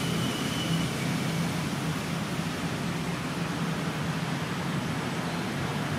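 Steady low hum with an even background hiss, like a motor or distant traffic, and a brief thin high tone in the first second.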